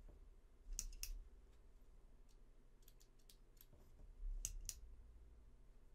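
Small cordless USB airbrush compressor running with a faint steady hum. Scattered clicks and two short, louder clicking bursts, about a second in and just after four seconds, come from the attached airbrush being handled.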